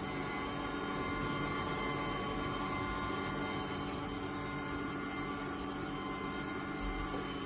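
Compressor ice cream maker running: a steady machine drone with a fixed whine over its hum.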